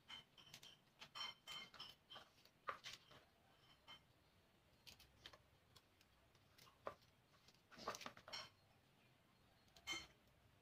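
Faint, irregular clicks and snaps of water spinach stems being broken off and cut with a small knife, with leaves dropping into a plastic basin.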